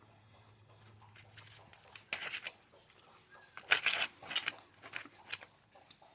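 Eating sounds while tasting a chocolate dessert from a tin pan: a few short, irregular scrapes and smacks, the loudest about four seconds in.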